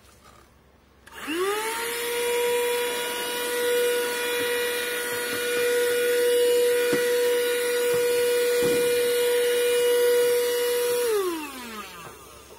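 Handheld 12-volt car vacuum cleaner switched on about a second in: its motor spins up quickly to a steady high whine while it sucks up scattered debris, with a couple of light knocks. Near the end it is switched off and the whine winds down, falling in pitch.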